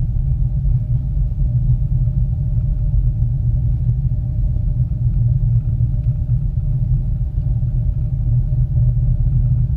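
Steady low rumble with a faint, even hum, heard from inside a moving ropeway gondola cabin.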